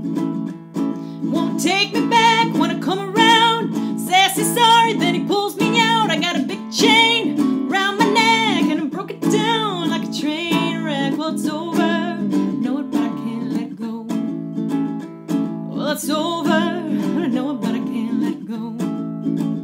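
Ukulele strummed through E7, D7 and A7 chords with a woman singing the song over it. The singing drops out for a few seconds about two-thirds of the way through while the strumming carries on.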